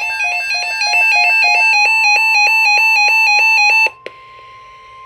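Electronic emergency alert tone warbling rapidly back and forth between two pitches, cutting off abruptly about four seconds in. A fainter steady single tone runs underneath from about a second in and carries on alone after the warble stops: the attention signal that opens an Emergency Alert System / NOAA Weather Radio severe thunderstorm watch.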